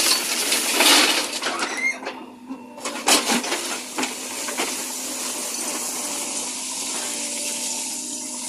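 JCB 3DX backhoe loader at work: its diesel engine runs steadily under metallic clanks and rattles from the bucket and boom. Loud noisy surges come near the start and a sharp clank about three seconds in.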